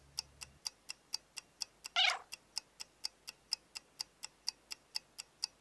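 Clock ticking steadily, about four ticks a second, with one short cat meow about two seconds in that falls in pitch.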